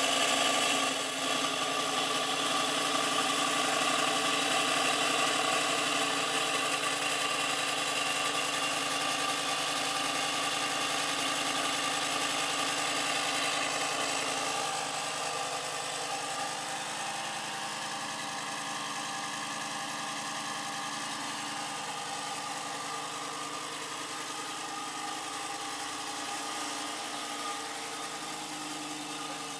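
Lamborghini Huracán's V10 engine idling steadily just after being started. The idle eases down and gets quieter about halfway through.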